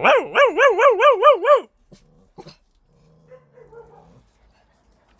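A dog-like howl, loud and warbling rapidly up and down about seven times a second, that stops short after a second and a half or so. A couple of faint clicks and a faint low whine follow.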